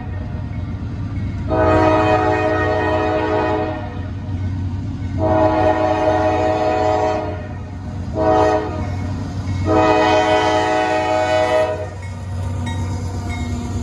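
Norfolk Southern diesel locomotive sounding its horn for a grade crossing in the standard long, long, short, long pattern, over the steady rumble of its engine. After the last blast the engine grows louder as the locomotive comes up close.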